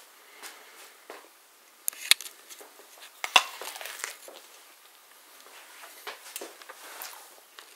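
Scattered light clicks and knocks, the two sharpest about two and three and a half seconds in.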